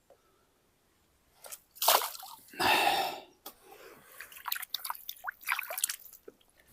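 Water splashing as a catch of small fish is tipped back into the river: two splashes about two and three seconds in, then dripping and trickling.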